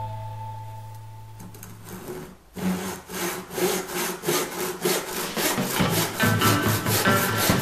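Tenon saw cutting across a wooden piece in a bench vise, with steady, rhythmic back-and-forth strokes beginning about two and a half seconds in; it is finishing the shoulder cut of a rebate joint. Before the sawing, the last note of background music fades out, and music comes back in under the strokes near the end.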